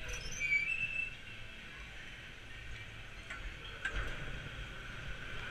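Chairlift terminal machinery running: a steady low rumble with a high, squealing whine from the haul cable running over the terminal wheels, and brief higher squeaks about half a second in.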